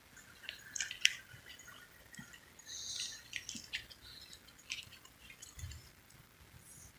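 Marker writing on a surface: faint short squeaks and scratches of the tip, with a sharp click about a second in.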